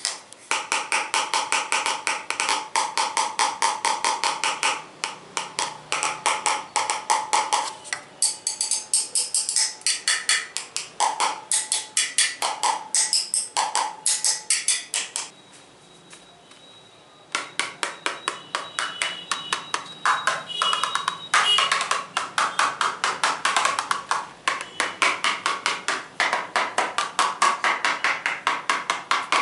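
Fast tapping on assorted hard objects, several taps a second, some of them ringing with a short pitched tone. The tapping stops for about two seconds around halfway, then resumes at the same pace.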